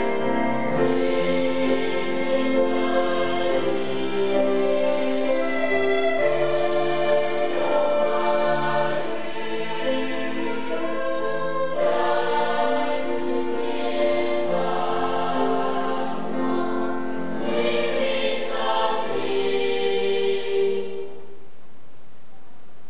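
A children's choir singing, with sustained held notes; the song ends about 21 seconds in.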